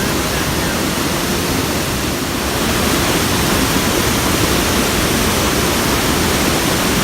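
A river in flood pouring over a dam, a loud, steady rush of water with no breaks.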